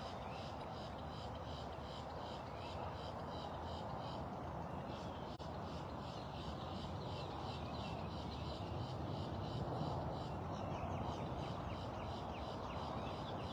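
Outdoor ambience: a steady background hum with many small birds chirping throughout.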